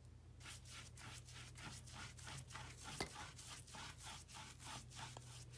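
Wide flat watercolour wash brush stroking back and forth across wet paper: a soft, rhythmic brushing rasp about four strokes a second, with one sharper tap about three seconds in.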